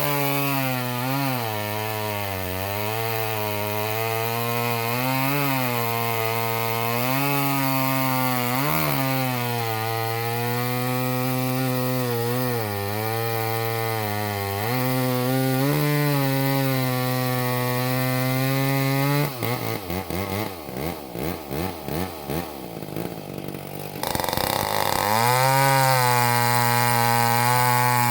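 Vintage McCulloch 10-10A two-stroke chainsaw cutting wood at full throttle, its pitch dipping and recovering as the chain loads in the cut. About two-thirds of the way in it drops for a few seconds to a quieter, uneven, pulsing run, then comes back suddenly to full revs.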